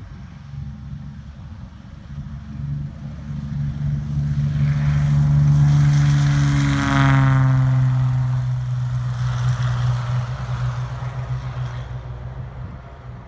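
Cessna 210's six-cylinder piston engine and propeller at full takeoff power, growing louder as the plane rolls toward the listener. The pitch drops sharply as it passes, about seven seconds in, then the sound fades as it climbs away.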